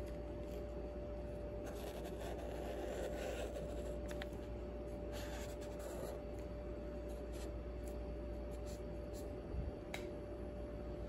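Felt-tip marker rubbing on paper in two scratchy stretches of strokes, about two and five seconds in, over a steady low hum, with a few light clicks near the end.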